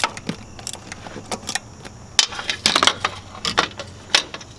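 Metal hand tools being handled, a string of irregular metallic clinks and clicks.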